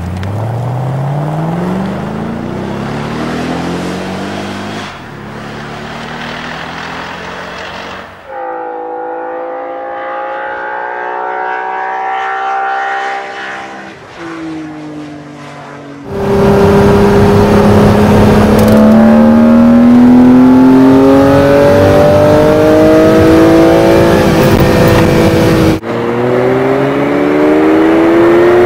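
High-performance car engines and exhausts accelerating, their pitch climbing steadily as the revs rise, in several separate clips joined by sudden cuts. The loudest stretch comes after about 16 seconds, a long rising pull, followed near the end by another climb.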